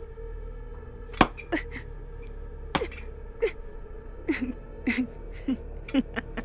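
A long wooden stick repeatedly striking a person lying on a bed: about ten sharp blows at uneven intervals, several followed by a short grunt. A steady hum runs underneath.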